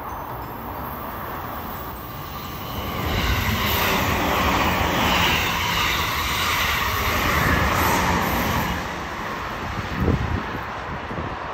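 JR Kyushu 783 series limited express electric train running past on the rails, its wheels and running gear rumbling. The noise swells about three seconds in as a car passes close and eases near the end, with one short knock about ten seconds in.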